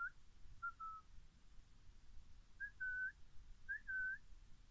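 Newborn puppies whimpering while they nurse: four faint, high, whistle-like whines, each a quick rise and then a briefly held note, the last two longer.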